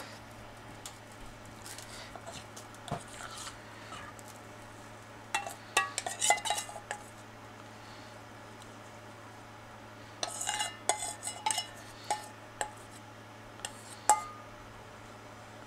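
A metal spoon clinking and scraping against a batter bowl and a nonstick frying pan as bean-sprout pancake batter is scooped out and spread. The clinks come in two bunches, over a steady low hum.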